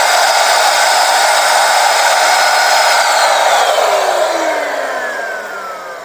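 Weyon single-speed 400-watt handheld stick vacuum cleaner running at full suction, a fairly noisy rush of air with a high motor whine. About halfway through it is switched off, and the whine falls steadily as the motor spins down.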